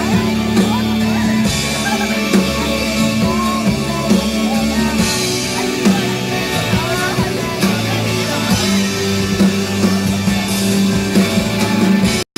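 Live rock band playing at full volume: drum kit, electric guitars and sustained bass notes, with singing over them. The music breaks off abruptly at the very end.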